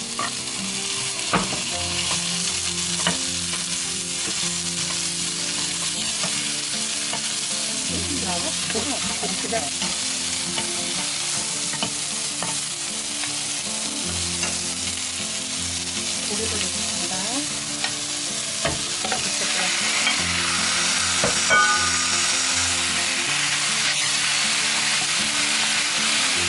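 Sliced onion and garlic sizzling in hot oil in a nonstick wok, stirred with a wooden spatula that taps and scrapes against the pan. About twenty seconds in the sizzle grows louder and brighter as marinated pork goes into the pan.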